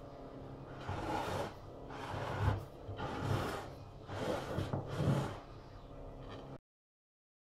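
Spatula strokes spreading chocolate glaze over a cake on a plate: a soft scraping rub about once a second, with light knocks of the tool against the plate. The sound cuts off abruptly near the end.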